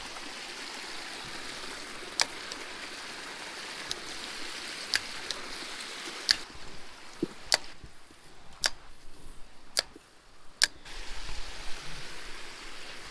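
Shallow creek water running steadily over and through a beaver dam, a rushing riffle, with a scattering of sharp short clicks through it.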